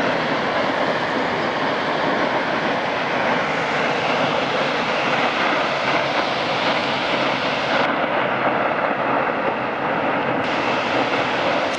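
Water from a brimming-full dam gushing out in a heavy jet and crashing into the gorge below, a loud, steady rushing. The sound goes briefly duller for a couple of seconds after about eight seconds.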